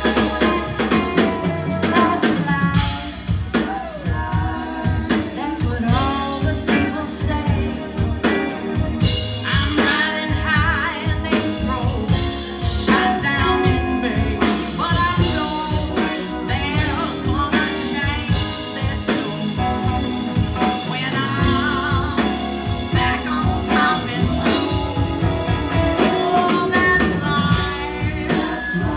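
Live rock band playing, with electric guitars, keyboards and drum kit, while a woman sings lead into a microphone.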